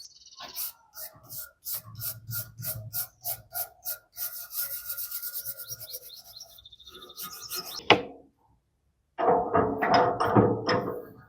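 Hand rubbing or filing strokes on rusty metal, about four to five a second, running together into steady scraping. A sharp click comes near eight seconds, then a short pause and a louder stretch of scraping.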